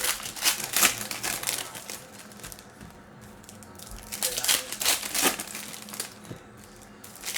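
Foil trading-card pack wrappers crinkling and cards being handled, in two bouts: one at the start and another about four seconds in.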